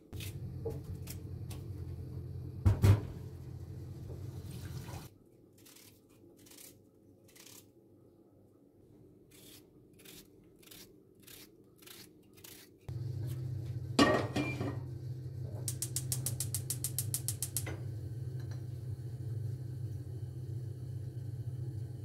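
Steady low hum with a loud knock about three seconds in. Then a knife slicing an onion on a plate, the blade tapping the plate about a dozen times. The hum returns with a clatter and a fast run of ticks, about ten a second for under two seconds.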